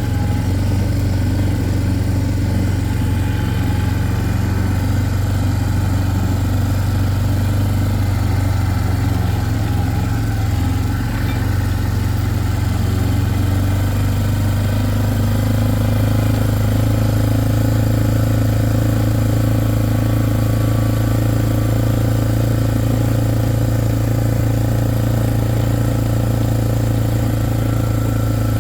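Vehicle engine running steadily while being ridden, with a slight change in tone about halfway through.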